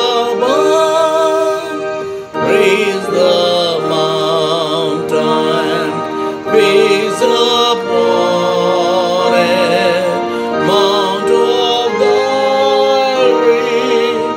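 A hymn sung by a solo voice with wide vibrato over a sustained instrumental accompaniment, the melody moving note by note in slow phrases.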